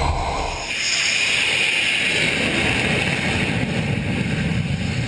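Jet fighter engine noise: a loud rushing hiss with a high whine over it. It comes in sharply under a second in, replacing a deeper rumble, and eases off near the end.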